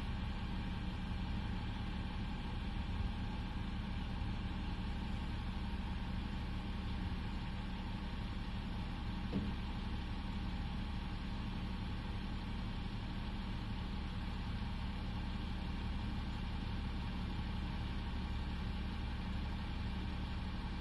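Refuse collection lorry's diesel engine running at idle: a steady low rumble with a faint constant hum, and one short knock about halfway through.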